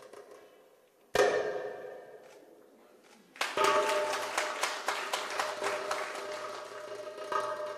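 Egyptian tabla (metal goblet drum, darbuka) played solo: a single ringing stroke about a second in that is left to fade, then a fast roll of strokes from about halfway that carries on to the end.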